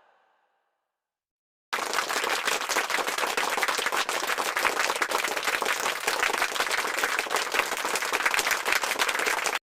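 Crowd applause, dense clapping that starts suddenly about two seconds in and cuts off abruptly just before the end.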